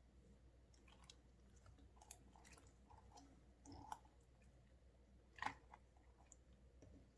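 Slime being squished and pulled: faint sticky clicks and squelches, with two louder wet pops, about four seconds in and, loudest, about five and a half seconds in.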